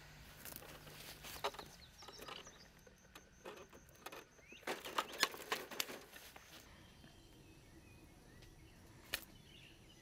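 Rustling and sharp clicks from hands working a small bird out of a mist net. They come in a short cluster about a second in and a denser burst around five seconds in, with one single click near the end.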